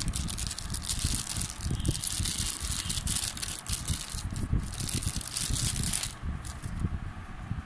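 Watch packaging being handled: crinkling, rustling and rattling with low knocks of handling. The rustle stops about six seconds in.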